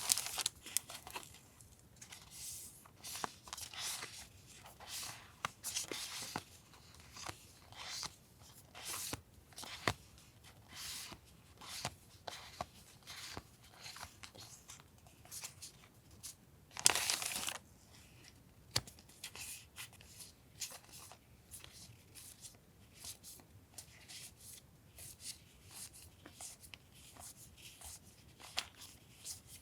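Paper stationery being handled: sticker sheets and memo-pad paper give a string of short, dry rustles and crinkles. Over halfway through, one louder tear or peel lasts under a second.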